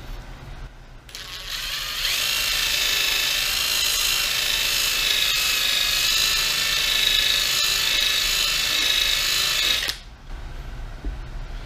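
A small handheld power tool's electric motor whines steadily for about eight seconds: it starts about a second in, climbs to full speed and cuts off sharply near the end.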